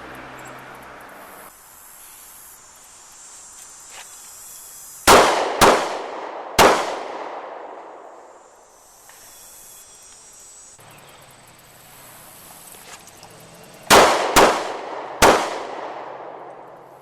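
Two strings of handgun shots, each a quick pair followed by a third shot about a second later: the failure drill, two to the body and one to the head. Each shot rings out with a long echoing tail.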